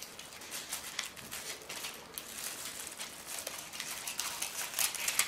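Paper envelope rustling and crinkling as a child handles it with scissors, a run of short, irregular scratchy sounds.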